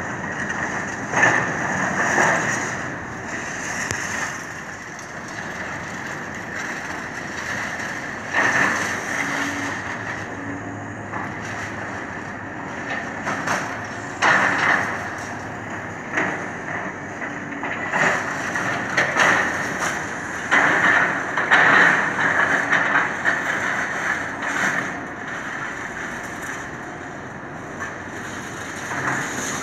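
Demolition of a brick building by a tracked excavator: its diesel engine runs steadily under repeated bursts of crunching and clattering as masonry and debris are torn and dropped.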